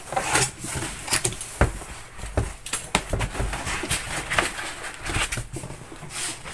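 Cardboard box flaps being opened and a foam packing sheet lifted out. The result is an irregular run of cardboard scrapes, knocks and rustles.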